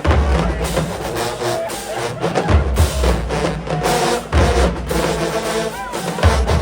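Marching band playing: brass horns holding notes over a drumline, with heavy bass drum hits about every second and snare strokes between.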